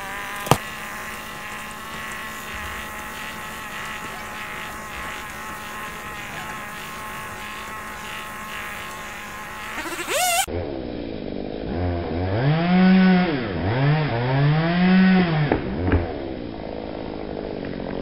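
Chainsaw running steadily at a high, even pitch for about ten seconds. After a sudden change it is revved up and down several times, the pitch rising and falling in repeated swells.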